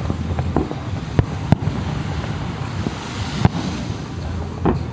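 Fireworks bursting: about five sharp bangs at irregular intervals over a steady low rumble of background noise.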